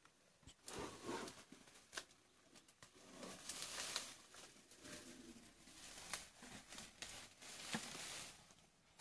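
Asian elephant feeding in dense grass and bamboo: leaves and stems rustle and tear as it pulls plants with its trunk, with a few sharp snaps of stems.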